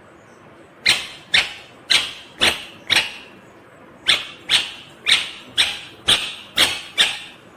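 Indian ringneck parakeet calling in short, loud, sharp calls, about two a second: five in a row, a pause of about a second, then seven more.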